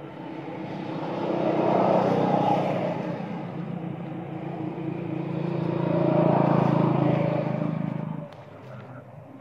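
A motor vehicle engine running past nearby. It swells and fades twice, then drops away suddenly near the end.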